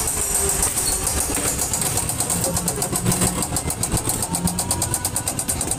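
Ghost train ride car running along its track, with a rapid, even ticking of about eight clicks a second over a low rumble; the ticking becomes more regular about two seconds in.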